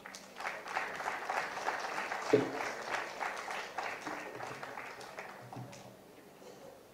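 Audience applauding, a dense patter of many hands that fades away over the last couple of seconds, with one sharp thump about two seconds in.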